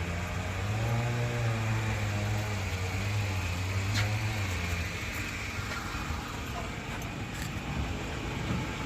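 A vehicle engine running with a steady low hum that swells about a second in and fades away a little before halfway through. A single sharp click comes near the middle.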